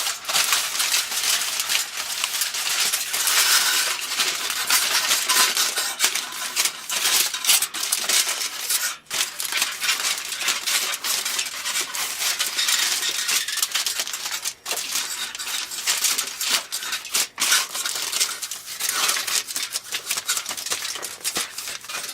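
Aluminum foil crinkling and crackling steadily as it is folded and pressed over the edges of a piece of cardboard.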